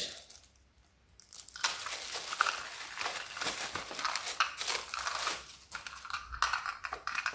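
Clear plastic packaging bag crinkling and rustling in irregular crackles as it is pulled off a dog water bottle, starting about a second in.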